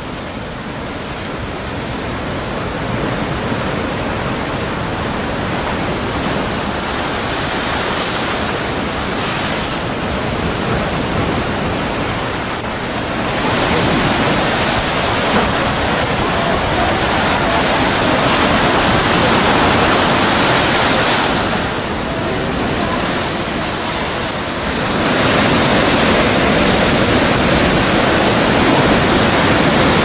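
Strong wind over a rough sea with surf: a loud, continuous rushing noise that swells about halfway through, dips briefly, then rises again near the end.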